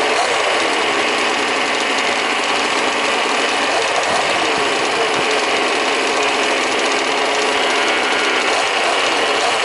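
Several 1/5-scale RC buggies' small two-stroke petrol engines buzzing and revving together, their pitches rising and falling across one another.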